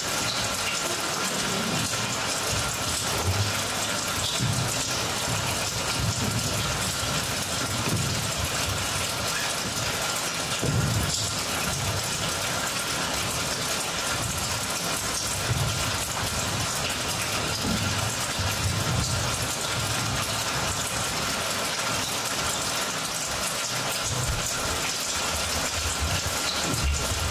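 Steady rushing, water-like noise from a dance piece's soundscape played over the house speakers, with soft low thuds now and then.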